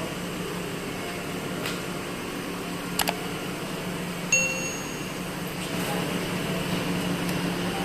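A steady low hum with a sharp click about three seconds in, then a short, bright, bell-like ding just after four seconds.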